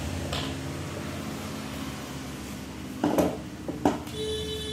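Steady low mechanical hum in a small room, with a few light knocks and clatters about three to four seconds in and a short high tone near the end.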